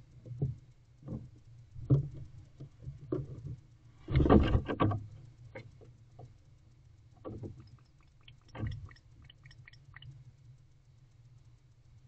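Barn owl's talons knocking and scraping on the wooden floor and walls of its nest box, rising to a loud scrabbling flurry about four seconds in as it leaves the box. A few fainter clicks follow, over a low steady hum.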